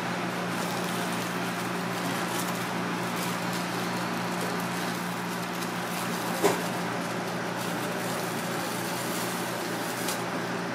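Steady hum of kitchen machinery such as a ventilation fan, with light crackling of a plastic bag being handled and a sharp tap about six and a half seconds in.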